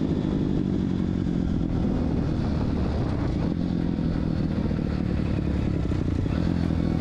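Pit bike's 160cc KLX-type single-cylinder four-stroke engine, converted from a two-valve to a four-valve head with a light stage 1 tune and a 30 mm carburettor, running at a steady speed under way. It is on its first ride, with the carburettor not yet tuned.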